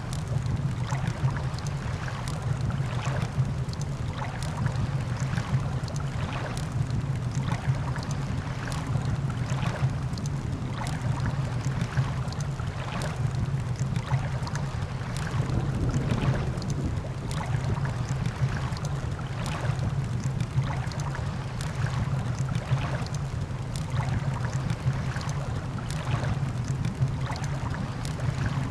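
Campfire crackling with frequent irregular pops over a steady wash of sea surf.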